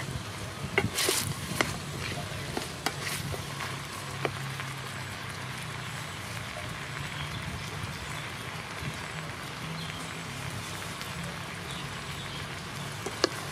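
Frog stew boiling hard in an aluminium pot: a steady bubbling hiss over a low steady hum. A wooden ladle knocks against the pot several times in the first few seconds and once near the end.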